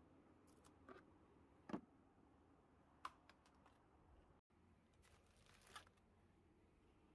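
Near silence, broken by a few faint clicks and knocks from hands handling the plastic airbox and filters, with a brief soft rustle about five and a half seconds in.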